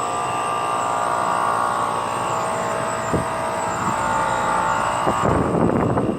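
2009 NuTone heat pump outdoor unit running with a loud, steady droning whine made of several tones over a rough, rattly noise. The owner calls it a weird noise and says the unit is vibrating everywhere. Near the end it grows louder and rougher for about a second.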